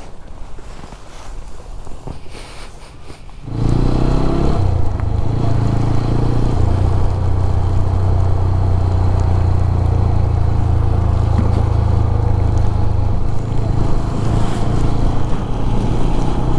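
TVS Apache RTR 200 4V motorcycle's single-cylinder engine cuts in suddenly about three and a half seconds in and keeps running at a steady pitch. Before that there is only quieter background sound.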